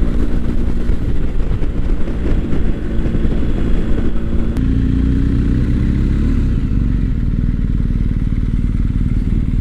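BMW GS boxer-twin motorcycle engine running at steady cruising revs, mixed with wind rush. A single sharp click comes about halfway through.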